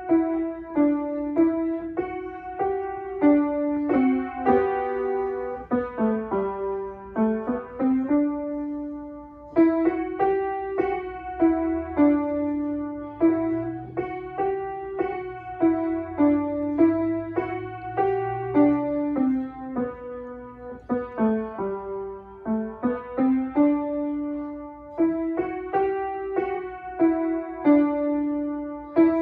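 Piano played solo: a simple melody of separate struck notes over lower notes in an even rhythm, the same phrase coming round again about a third of the way in and near the end.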